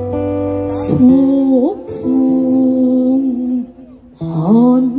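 Live song: a voice holding long notes with wide swooping pitch slides over acoustic guitar accompaniment. The sound drops away briefly just before four seconds, then the voice comes back in with a rising slide.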